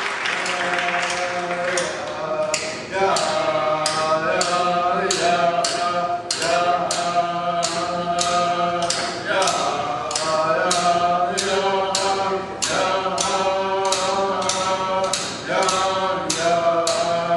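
Inupiaq drum song: large hand-held frame drums struck in a steady beat, about two strikes a second, under voices singing in chant-like phrases. Applause from the previous piece fades out in the first couple of seconds.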